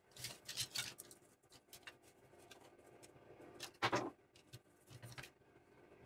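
Small parts being handled on a workbench: a run of clicks and rustles in the first second, a louder knock about four seconds in, and a couple of lighter clicks just after five seconds.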